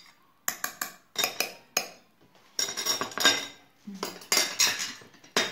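Metal spoon clinking and scraping against a glass bowl and jar while chopped parsley is scraped out of the bowl: a quick run of sharp clinks, then two longer stretches of scraping, and a last clink near the end.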